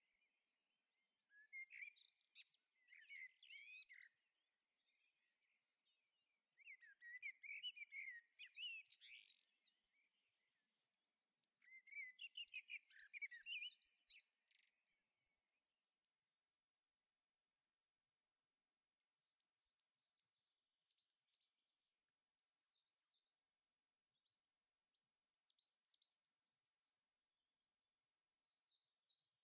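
Faint woodland birdsong: quick series of high, down-slurred notes repeated in short phrases with pauses between them, and a lower, warbling song joining in during the first half.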